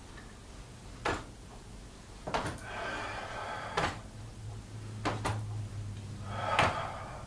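Hands slapping against the torso as the arms swing around the body in a twisting qigong exercise, one slap, sometimes a quick double, about every one and a half seconds.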